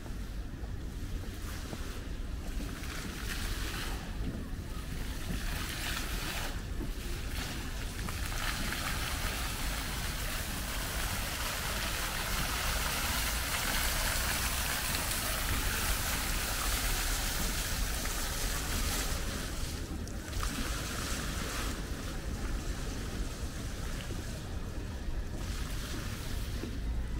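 Water splashing and running as a steady hiss, fullest through the middle of the stretch, over a low rumble of wind on the microphone.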